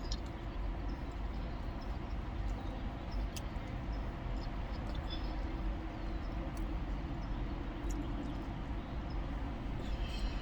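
Steady low rumble and hiss of a car's cabin with the engine and air-conditioning running, with a few faint clicks over it.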